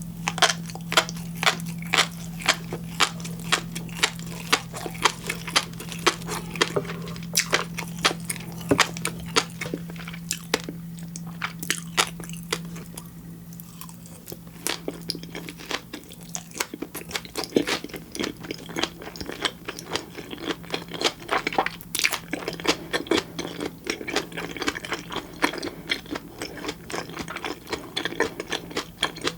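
Close-miked chewing of raw fish and black flying fish roe (tobiko): a rapid, continuous stream of crisp pops and clicks, several a second. A steady low hum sits underneath and fades out about halfway through.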